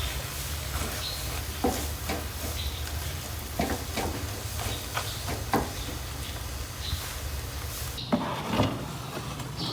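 Scrambled eggs with spinach frying in oil in a pan: a steady sizzle with scattered stirring knocks and scrapes. About eight seconds in, the sizzling cuts off abruptly.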